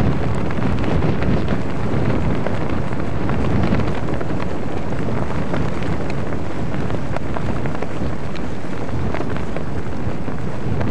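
Wind buffeting a camcorder microphone on open water: a steady, loud noise heaviest in the low range, with a few faint ticks.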